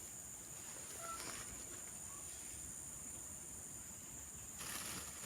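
Steady high-pitched chorus of insects buzzing without a break, with a brief rustle near the end.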